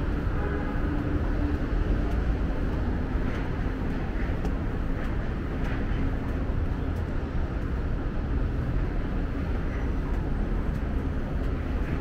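Steady low vehicle rumble with a faint steady hum above it.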